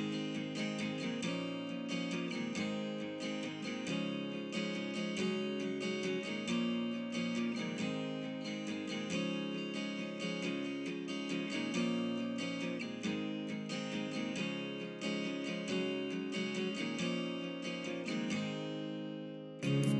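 Background music: plucked and strummed acoustic guitar, with a brief drop near the end before a new passage begins.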